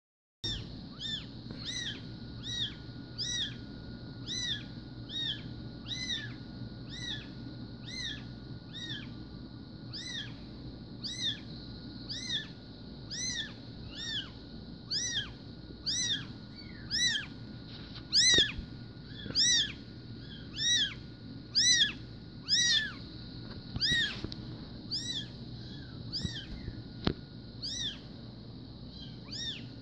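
A young Bengal kitten mewing over and over in short, high-pitched cries, each rising then falling in pitch. The cries come at about one or two a second, loudest through the middle of the stretch.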